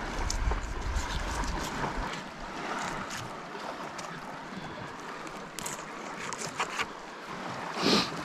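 Wind buffeting the microphone, heaviest in the first two seconds, over a steady wash of waves. Scattered small clicks and rustles come from a pink snapper being handled on a plastic board, with one brief louder rasp near the end.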